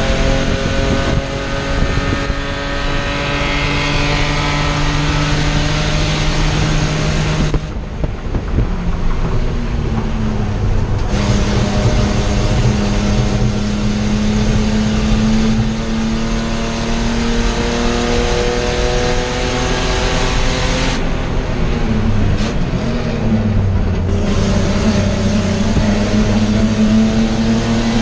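Spec E30 race car's straight-six engine heard from inside the stripped cabin at racing speed. Its pitch climbs for several seconds, drops off suddenly about eight seconds in, and climbs again about three seconds later. It drops and wavers again a little past twenty seconds, then pulls again near the end.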